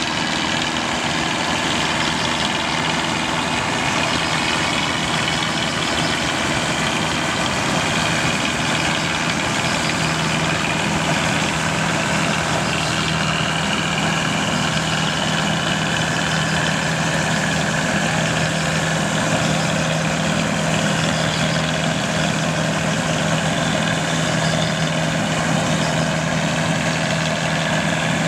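1963 Aktiv combine harvester running steadily while cutting wheat: an even engine hum under a constant whir of threshing machinery.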